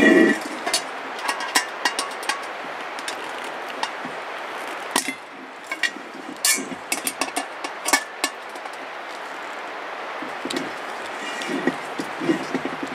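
Irregular metallic clicks and clinks as the bolts on a Weber Smokey Joe kettle grill are gone over and tightened, over a steady background hiss.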